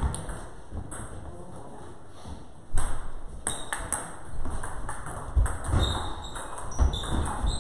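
Table tennis rally: a celluloid ball clicking off rubber paddles and bouncing on the table, a sharp knock a little under three seconds in and then quick taps about every half second.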